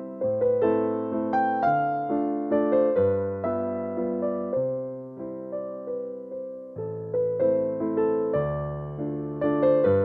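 Background music: a calm piano melody of struck, fading notes over low bass notes that change every second or so.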